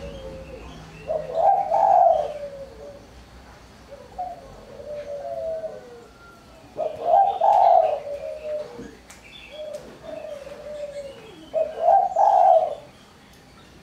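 Spotted dove cooing: three song phrases about five seconds apart, each a loud cooing burst followed by softer falling coos. The voice is the bright, crisp kind that dove keepers call mersik.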